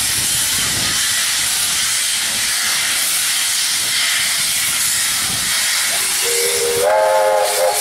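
Steam locomotive No. 3265 moving slowly with steam blasting from its open cylinder drain cocks, a steady loud hiss. About six seconds in, a steam whistle starts, growing louder and fuller a moment later.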